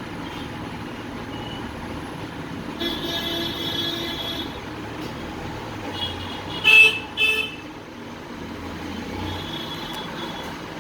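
Vehicle horns honking over steady street-traffic noise: one horn held for a second or two about three seconds in, then two short, loud honks near the middle.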